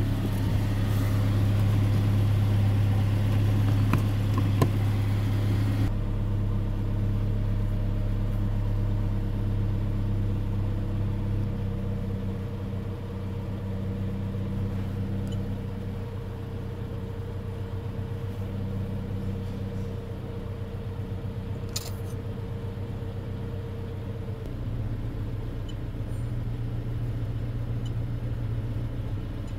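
Toyota car engine idling steadily as a low hum from inside the cabin. The note shifts slightly about six seconds in and again near the end, and there is one short click about two-thirds of the way through.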